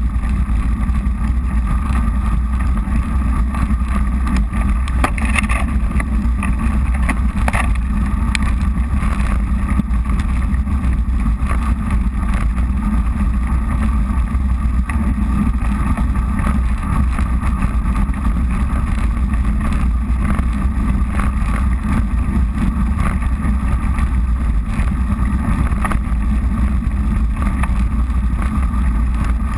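Steady low rumble of a mountain bike riding over a frozen, icy dirt trail: tyres crunching on the ground and wind buffeting the camera microphone, with a couple of sharper ticks from bumps about five and seven seconds in.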